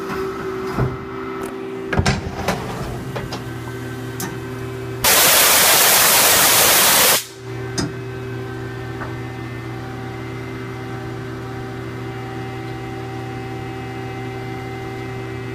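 CNC lathe running with a steady mechanical hum, with a few sharp clicks in the first three seconds. About five seconds in, a loud rushing hiss lasts about two seconds and cuts off, and the hum carries on.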